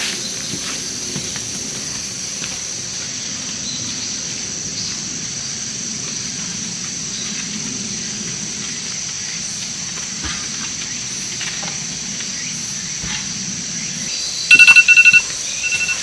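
Insects chirping steadily. Near the end a loud electronic alarm beeps in a quick run and then once more: the dog's medicine-time alarm.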